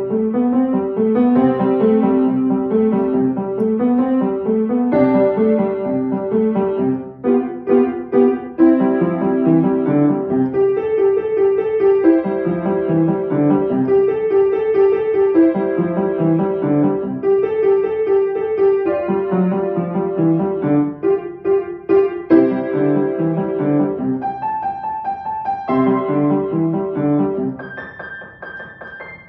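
Upright piano playing a fast étude: a quickly repeated note in the middle register runs over shifting lower notes, with a few brief breaks, and the sound dies away near the end.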